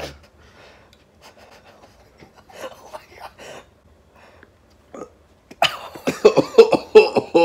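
A man's voice making non-speech sounds: faint murmurs and breaths, then about five and a half seconds in a burst of short, loud, broken vocal noises lasting about two seconds.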